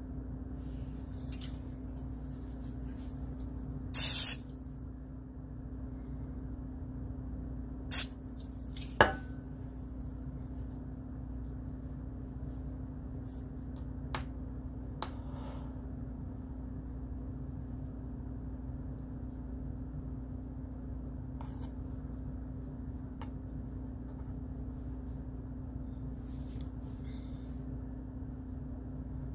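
Steady low hum of kitchen room tone. Over it come a short hiss about four seconds in, then two sharp clatters of dishes or utensils a second apart, and a few faint ticks later on.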